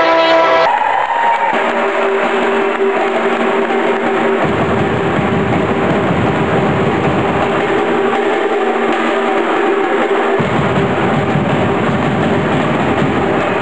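Live band music with a drum kit and percussion. A held musical chord cuts off under a second in, then a dense drum-led groove follows, with a deep bass that comes in about four seconds in, drops away for a couple of seconds and returns.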